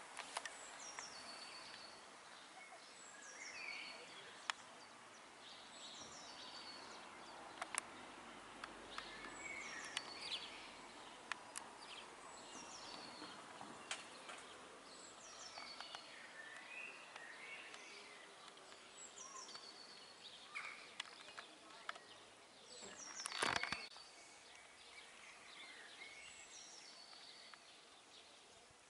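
Small songbirds singing: short, high phrases that slide downward, repeated every second or two over a faint steady background noise. A brief louder rustle or knock comes about two-thirds of the way through.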